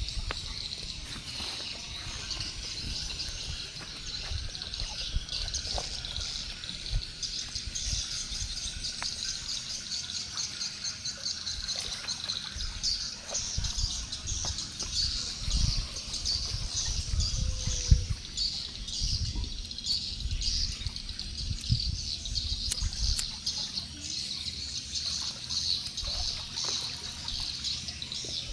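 Swiftlets twittering: a dense, continuous chorus of rapid high chirps, the kind of call-sound recording played to lure swiftlets into a nesting house. Irregular low rumbles run underneath.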